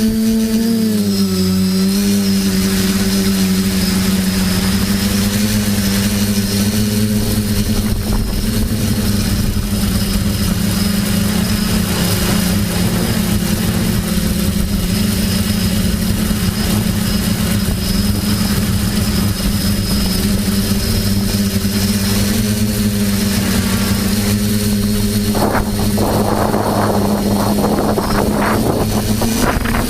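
TBS Discovery quadcopter's electric motors and propellers droning steadily in flight, the pitch dipping briefly about a second in as the throttle changes. From about 25 seconds in, a gusty rushing noise joins it.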